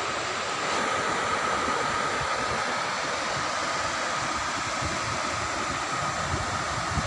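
Sea surf washing up a sandy beach, with wind buffeting the microphone in irregular low gusts and a faint steady high hum underneath.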